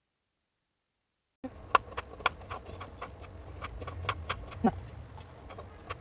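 Silence for about the first second and a half, then a kitchen knife slicing ginger on a wooden chopping board: irregular sharp taps, a few a second, over a low background hum.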